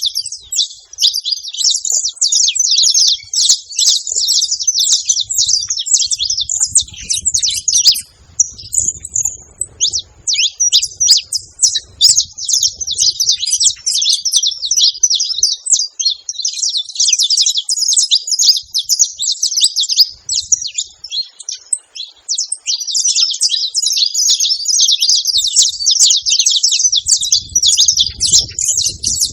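Saffron finches chirping and singing in a fast, almost unbroken stream of high notes, with a short pause about a third of the way through.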